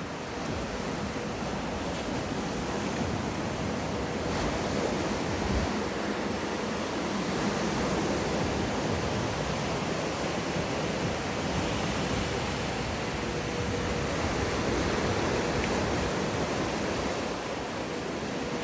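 Steady rushing noise of moving water and surf in a wave pool, with a faint steady hum underneath.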